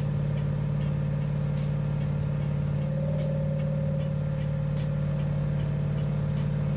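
Car engine idling steadily, a constant low hum with no electrical load on the alternator.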